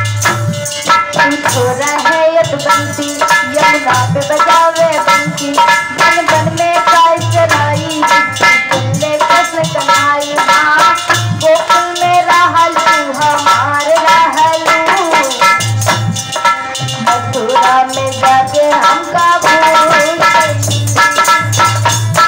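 Devotional bhajan music: a harmonium holding chords and playing the melody, over regular hand-drum strokes and a steady jingling rattle.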